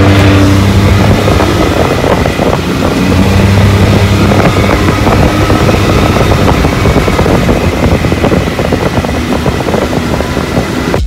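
Can-Am Maverick side-by-side's engine running under way on a bumpy dirt trail, its note swelling twice with the throttle, with frequent rattles and knocks from the machine over the ruts and wind on the microphone.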